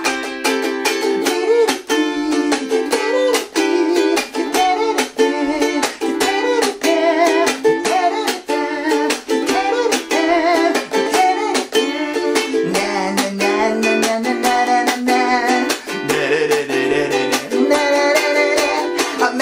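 Ukulele strummed hard in a fast, even punk-rock rhythm with muted chops, playing the Dm–Em7–Dm guitar-solo chords, while a man's voice carries a wavering melody over it.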